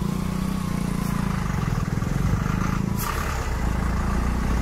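An engine idling with a steady low rumble, and one brief click about three seconds in.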